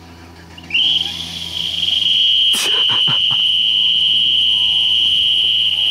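A homemade whistle fastened with latex gloves over a Chevy pickup's exhaust pipe, sounding a steady shrill whistle as exhaust blows through it. It starts under a second in with a short rise in pitch. A sharp thump comes about halfway, with a few weaker knocks after it.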